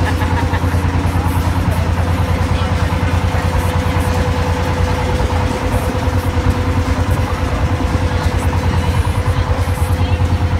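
Tour riverboat's engine running steadily under way: a loud, constant low drone with an even, rapid pulsing and a steady hum above it.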